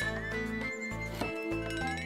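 Light background music: held bass notes that change every half second or so under a tune, with a high tone sliding down and then up near the end.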